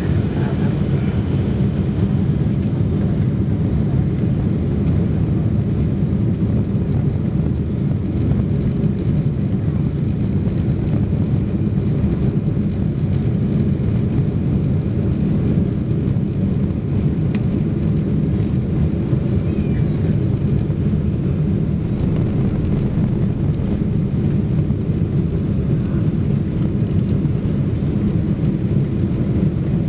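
Cabin noise of a Boeing 747-400 on its takeoff roll: its Pratt & Whitney PW4056 engines at takeoff thrust, heard as a loud, steady low rumble.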